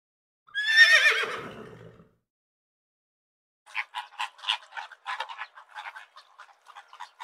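A horse whinnying once: a high, quavering call that falls in pitch over about a second and a half. About halfway through, a fast, irregular string of short animal calls starts and keeps going.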